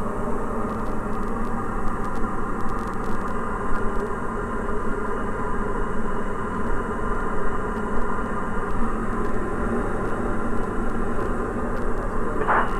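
Engine and propeller of a 2013 Diamond DA40 NG, an Austro AE300 turbo-diesel, droning steadily in flight, heard inside the cabin. A brief sharp sound comes near the end.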